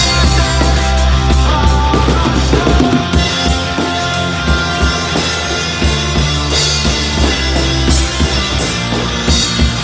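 Acoustic drum kit played live along to a drumless rock backing track: a steady beat of snare, bass drum and cymbal hits over the track's sustained instruments.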